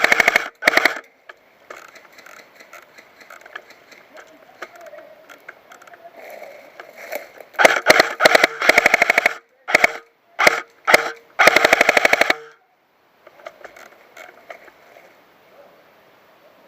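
Airsoft electric gun firing on full auto in rapid, evenly spaced clicks. A short burst comes at the very start, then after a pause a string of about six bursts in quick succession, the last about a second long.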